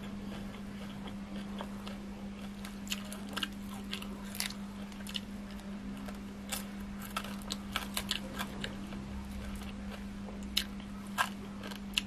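A person chewing close to the microphone, with frequent short, sharp crunches scattered throughout as she bites into food. A steady low hum runs underneath.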